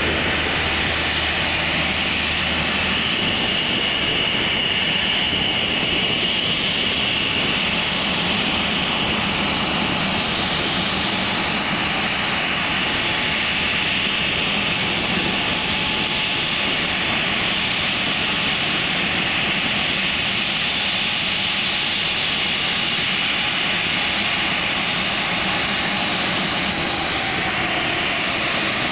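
Turbine aircraft engine running steadily, a high whine held over a rushing noise.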